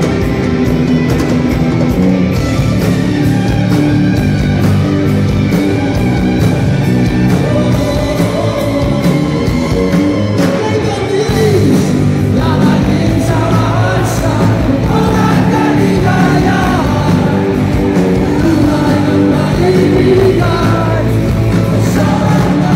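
Filipino rock band playing live: electric guitars and drum kit, with a male lead vocal that becomes prominent about halfway through.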